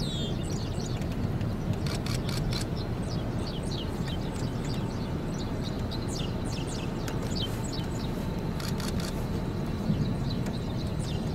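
Steady wind rumble on the microphone, with many short, high bird chirps that each drop in pitch, scattered through it.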